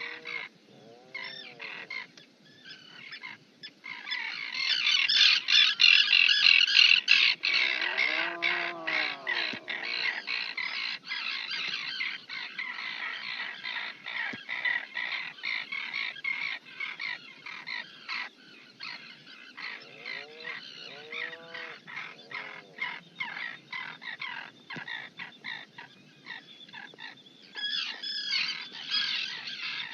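Birds calling: a dense stream of rapid, high chirping and squawking calls, loudest from about 4 to 8 seconds in and again near the end, with a few lower, arching calls at about 1 second, 8 seconds and 21 seconds.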